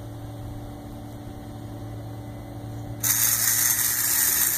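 A steady low hum, then about three seconds in the battery-powered electric motor of a Capsella toy speed boat switches on with a sudden, loud, high-pitched whir that keeps running.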